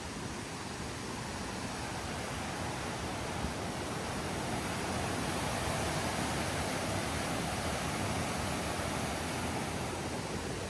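Rushing water of a mountain stream: a steady, even rush that swells a little louder in the middle.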